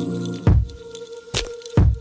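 Background music with a deep thumping beat about once a second over a held note.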